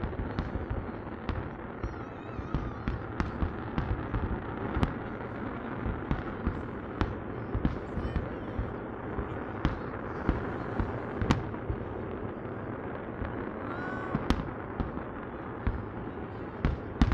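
Fireworks display: a steady rumble and crackle of shells bursting, broken by many sharp bangs at irregular intervals.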